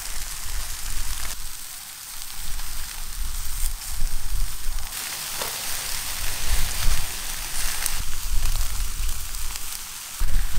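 Charcoal fire under whole chickens on bamboo spits: a steady hiss of sizzling fat and juices with scattered crackles and pops from the coals. A low rumble comes and goes underneath.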